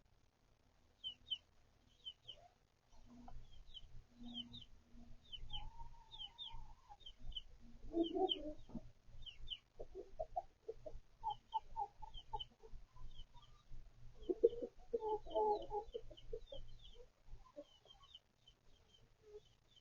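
Backyard chickens clucking in short runs, loudest about halfway through and again past two-thirds of the way, over a steady scatter of high chick peeps.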